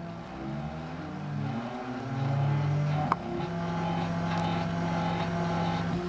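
Bipolar stepper motors of a homemade CNC machine, driven by L293D chips, whining as they move the axes, their pitch gliding up and down in the first few seconds before settling into steady tones over a constant hum. A sharp click about three seconds in.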